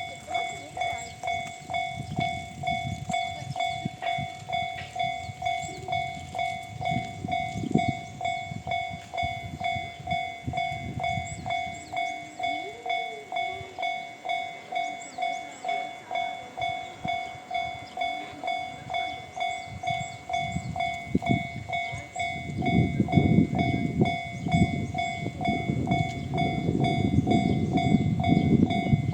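Level-crossing warning bell in the JR standard tone, ringing on at an even, repeating beat. Near the end a JR East 719 series 5000-number electric train, two two-car sets coupled, runs through the crossing with a loud low rumble of wheels on rail under the bell.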